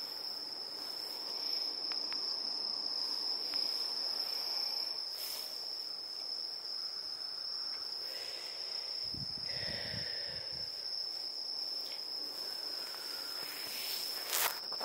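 Crickets chirping in a steady, unbroken high-pitched trill, with a brief low rumble about nine seconds in.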